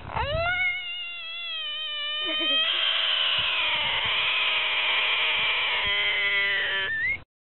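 An animal's long, drawn-out pitched cry that rises at the start and then holds steady for several seconds, growing fuller about two and a half seconds in. It ends on a short upward glide and cuts off sharply.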